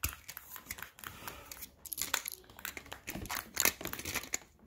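Irregular plastic clicks and rattles from a toy car's remote controller being handled and turned over in the hands.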